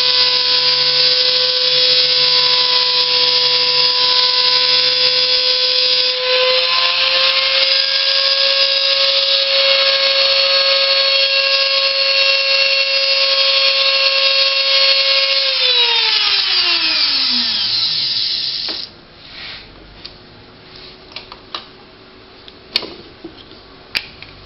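Homemade CNC machine's spindle motor running with a loud, steady whine, stepping up slightly in pitch about six seconds in. It is then switched off and winds down, the whine falling in pitch over about three seconds, followed by a few light clicks.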